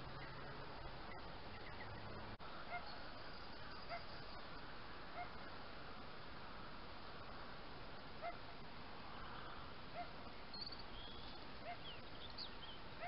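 Fox barking in the distance: a faint, short single call repeated about every second and a half, over a steady hiss.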